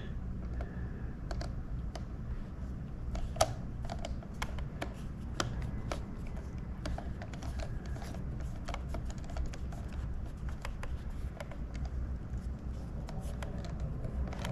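Scattered small clicks and taps of a plastic joystick housing and its screws being handled during reassembly, over a steady low hum.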